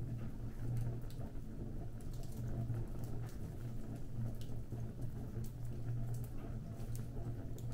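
Fire crackling, with irregular sharp snaps and pops scattered over a steady low rumble.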